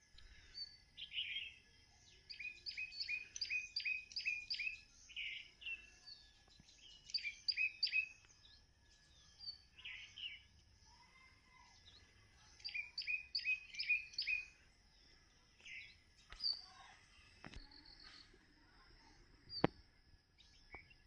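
Birdsong: a bird sings short phrases of quick, high, repeated notes, about three a second, with pauses of a few seconds between phrases, over a faint steady high hiss. A couple of sharp clicks come near the end.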